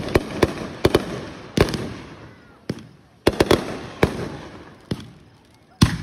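Fireworks going off in an irregular run of about a dozen sharp bangs, some in quick pairs, each followed by a short echoing tail.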